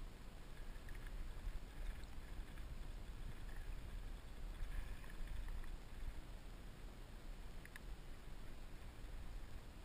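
Steady low rumble of wind on the microphone over faint lapping water, with a few small clicks.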